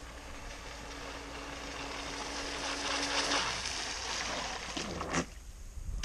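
Pro Boat Blackjack 24 RC catamaran running at speed on a 3-cell battery: the brushless electric motor's steady whine and the hiss of spray build as it comes up the channel, loudest about three seconds in. It then turns hard near the bank, with two short splashy bursts.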